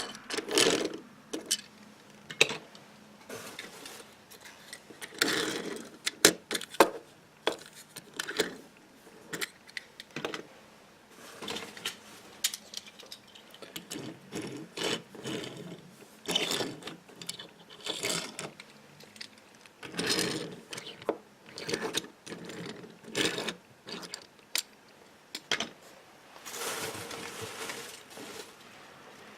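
Used die-cast toy cars being handled and sorted: irregular clicks, clinks, rattles and short scrapes of small metal-and-plastic cars knocking together and being set down.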